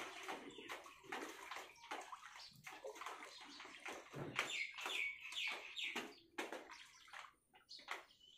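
A person wading through shin-deep floodwater, the water sloshing and splashing in a run of irregular strokes that thin out near the end.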